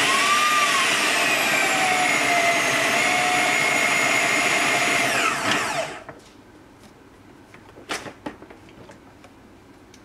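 Food processor motor running at full speed, blending a thick mixture of soaked dates, butter and syrup, with a steady whine. About six seconds in it is switched off and spins down, its whine falling away, followed a couple of seconds later by a short knock.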